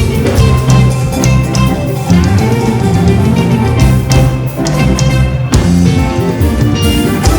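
Live church band playing an instrumental passage of a gospel anthem between sung lines: drums keeping a steady beat under sustained instrumental notes.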